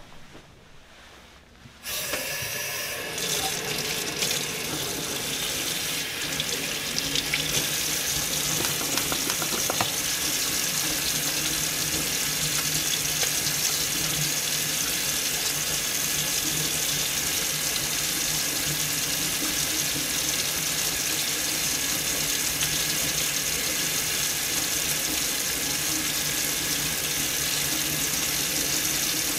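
Tap water running steadily from a gooseneck faucet into a stainless steel sink during handwashing. The water comes on suddenly about two seconds in.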